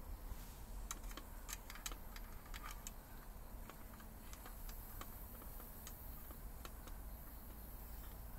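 A run of light, sharp clicks and ticks, closely spaced in the first few seconds and then sparser, over a faint low rumble.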